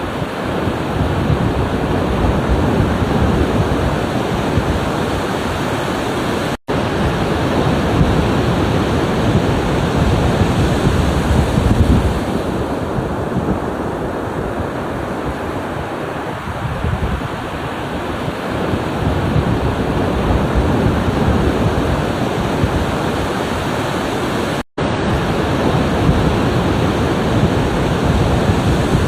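Ocean waves washing in continuously with wind buffeting the microphone, the surge swelling and easing every few seconds. The sound cuts out for an instant twice, about six and a half seconds in and near twenty-five seconds.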